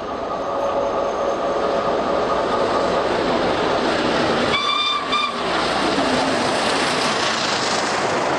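Steam-hauled passenger train running through at full speed: a steady roar of exhaust and wheels on rail that builds in the first second. About halfway through the locomotive gives a short whistle, broken once into two blasts close together.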